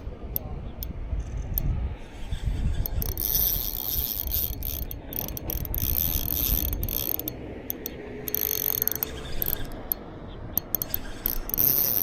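Shimano Vanquish spinning reel at work, a fast, steady run of fine ratcheting clicks. A low rumble sits under it for the first seven seconds or so.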